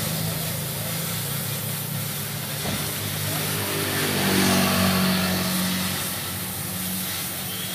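An engine running steadily. A second vehicle's engine rises in pitch and swells about four seconds in as it passes, then fades.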